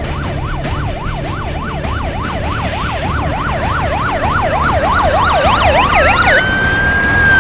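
Police siren in a fast yelp, its pitch sweeping up and down about four times a second and growing louder. Near the end a second tone rises and holds long and steady, over a low rumble.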